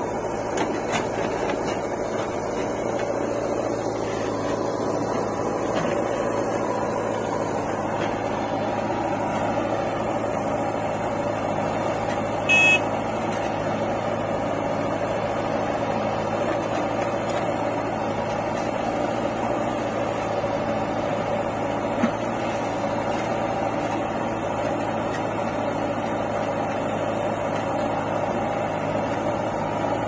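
Diesel engines of a JCB 3DX backhoe loader and a John Deere 5310 tractor running steadily while the backhoe digs and loads soil. About twelve seconds in there is a brief loud beep, and a single click comes later.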